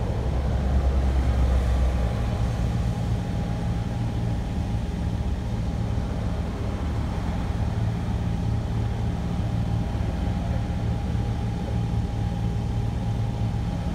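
Porsche Cayman GT4's flat-six engine idling steadily, with a deeper rumble in the first couple of seconds.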